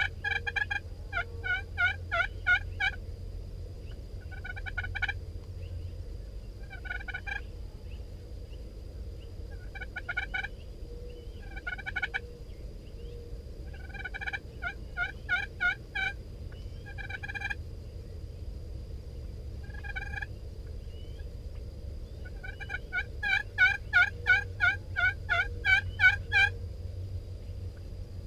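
Wild turkey gobblers gobbling again and again, short rattling gobbles coming in bouts a few seconds apart, with several overlapping near the end, the spring gobbling of toms around a hen. A steady low rumble of wind on the microphone runs underneath.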